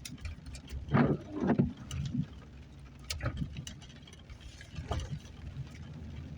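Inside a vehicle driving slowly on a dirt track: a steady low engine and tyre rumble, with scattered knocks and rattles from bumps in the road.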